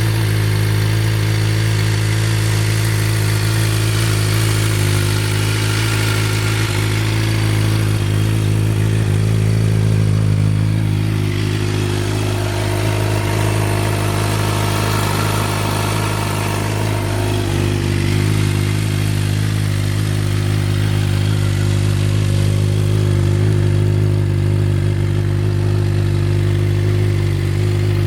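2012 Suzuki GSX-R750's inline-four engine idling steadily through a Two Brothers carbon aftermarket exhaust.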